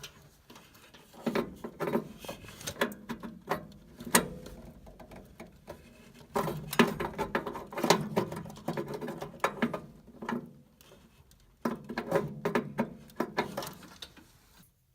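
Hand tools being handled: quick metal clicks and rattles in three bursts separated by short pauses.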